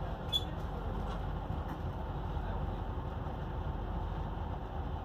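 Steady low rumble of a long freight train's open wagons rolling past on the rails, muffled through a train window. There is one brief click about a third of a second in.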